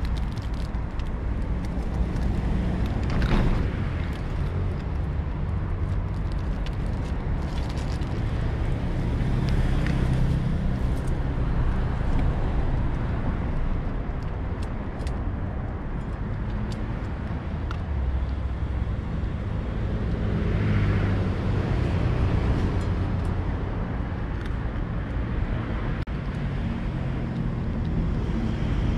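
Steady road-traffic rumble that swells and fades several times as vehicles pass. Faint, scattered crisp clicks sit on top: a cat chewing dry treats from a metal bowl.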